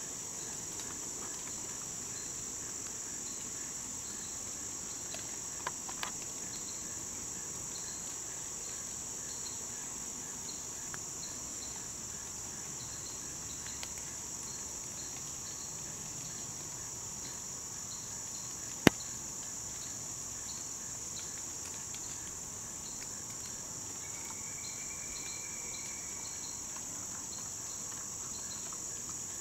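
Steady chorus of crickets in the woods: a continuous high-pitched drone with fast, evenly repeating chirps. A single sharp click stands out a little before two-thirds of the way through, with two fainter clicks about six seconds in.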